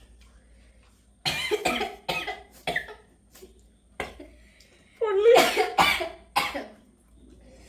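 Coughing and spluttering from the chilli heat of double-spicy hot chicken cup noodles: a run of short coughs about a second in, one more near the middle, and a louder run of coughs with a strained vocal sound about five seconds in.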